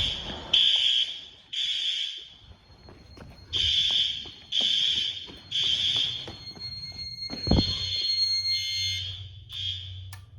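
Building fire alarm sounders going off in the temporal-three (Code 3) evacuation pattern: three short high beeps, a pause, three times over. They cut off near the end.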